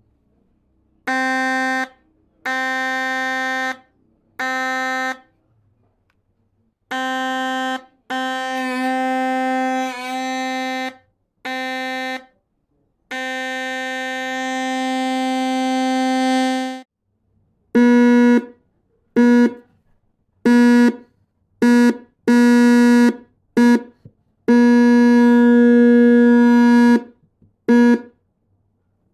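Old loudspeaker driven by a homemade LM317-based 12 V buzzer circuit, giving a harsh buzzing horn tone at one fixed pitch. It is switched on and off about sixteen times, mostly in bursts of a second or less with a few lasting two to three seconds. The bursts in the second half are louder.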